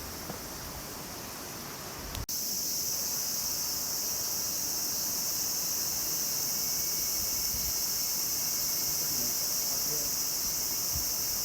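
Steady, high-pitched chorus of insects such as crickets, starting suddenly about two seconds in and holding unchanged; before that, only faint wind noise.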